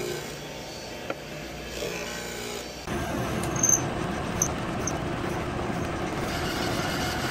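Benchtop disc sander running with a low steady hum while a hardwood strip is held against the disc. About three seconds in, it cuts to a drill press boring into the wood, a louder, even grinding noise with a few small ticks.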